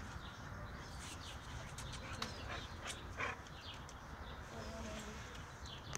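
Hedgehog chewing and smacking on tomato: a run of small, irregular clicks.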